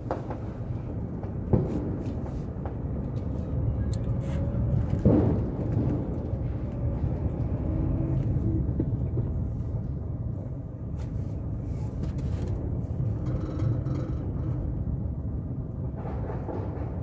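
Steady low rumble of a vehicle ride along a street, with sharp bangs of firecrackers going off now and then, the loudest about a second and a half in and about five seconds in.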